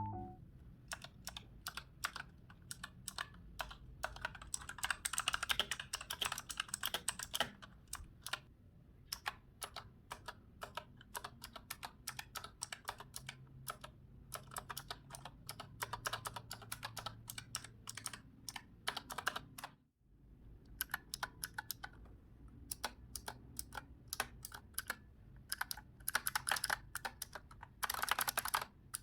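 Typing on a mechanical keyboard fitted with keycaps: a quick run of key clicks and clacks in bursts, with short pauses between them and a fast flurry near the end.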